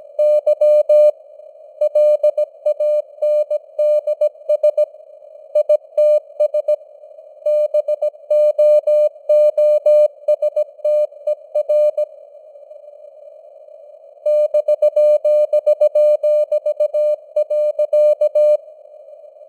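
Morse code (CW) sent at 17 words per minute as a single mid-pitched tone keyed in dots and dashes, over a hiss of simulated radio noise narrowed around the tone. The keying pauses for about two seconds midway and stops shortly before the end, leaving only the hiss.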